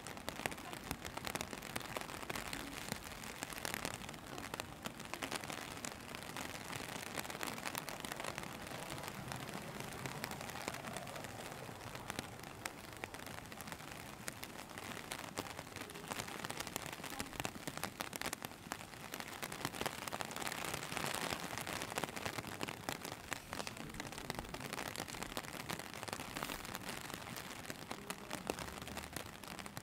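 Steady rain, an even hiss thick with sharp ticks of individual drops.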